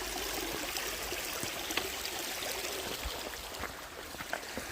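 Small stream running over rocks: a steady rush of flowing water, with a few light ticks and knocks.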